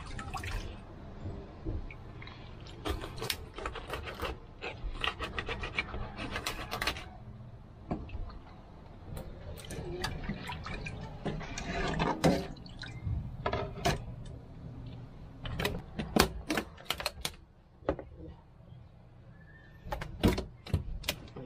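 Water sloshing and splashing as cut fish pieces are washed by hand in a pot at a kitchen sink, with clusters of sharp clacks and scrapes from a knife and steel pots. A steady low hum runs underneath.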